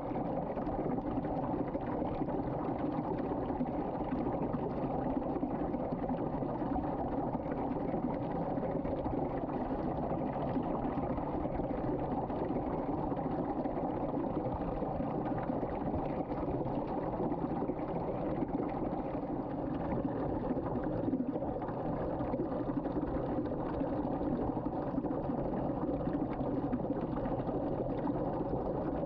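Water spinning in a whirlpool as it drains down a sink drain, a steady rushing of water that keeps the same level throughout.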